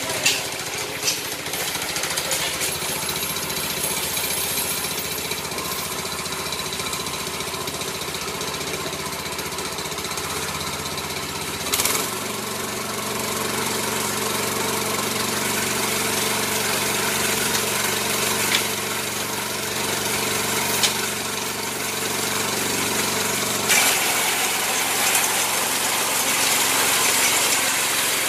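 Small air-cooled petrol engine of a walk-behind mini rice reaper running steadily. About twelve seconds in, its note steps up to a fuller sound with a sharp click, and it changes again abruptly a few seconds before the end.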